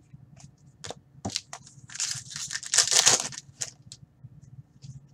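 Crinkling of plastic trading-card packaging (foil pack wrapper or card sleeve) being handled, about two seconds in and lasting nearly two seconds. It comes between light clicks and ticks of cards being shuffled.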